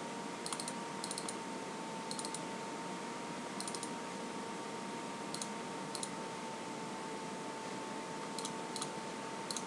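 Faint computer mouse clicks, mostly in quick press-and-release pairs, scattered irregularly while a file is being imported, over a faint steady hum with a thin high tone.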